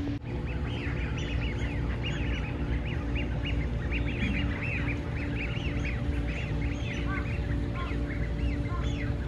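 A dense chorus of many birds, likely waterbirds over tidal flats, giving short high calls that overlap without a break.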